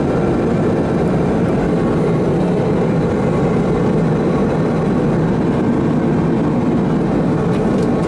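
Steady, even drone of a Boeing 777's cabin noise heard inside its lavatory: a low, unchanging rumble of engines and airflow.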